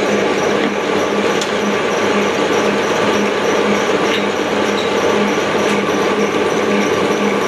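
Steady running noise of a plastic extrusion blow-moulding machine, with a low hum that pulses at an even rate and a few light clicks.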